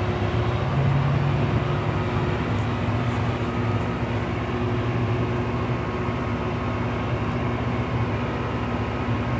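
Diesel engine of a rail grinder idling steadily, an even low hum with a fixed pitch.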